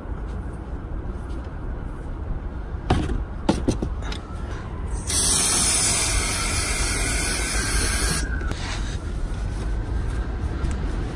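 A spray hisses in one steady burst of about three seconds, starting about five seconds in and cutting off abruptly. A few short metallic knocks come shortly before it, over a low background rumble.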